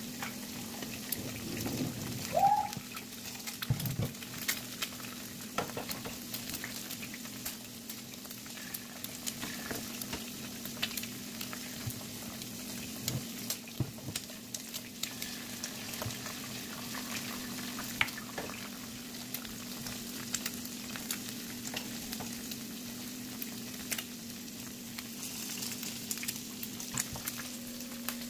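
Eggs frying in oil in a nonstick pan: a steady sizzle with scattered crackles and pops, over a low steady hum. A brief rising squeak about two seconds in is the loudest moment, and a dull thump follows just before four seconds.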